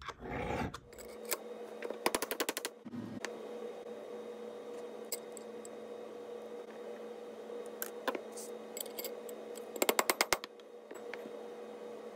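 Short runs of rapid metallic clicks and rattles from a Galil's steel bolt and carrier being handled and seated in the receiver, twice, with a few single clicks between, over a steady low hum. The fit of the freshly filed bolt is being checked while it is force-matched.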